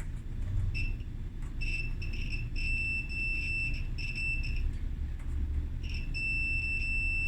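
Multimeter continuity beep, one high steady tone that stutters on and off for the first few seconds and then holds steady from about six seconds in. The tester is on the dryer's fan thermostat, and the beep shows continuity: the thermostat is good.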